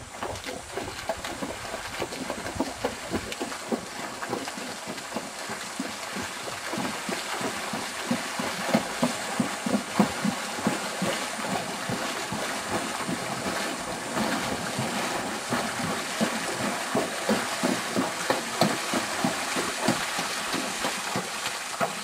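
Quarter horse wading through a shallow river, its hooves splashing water in a continuous irregular run of splashes.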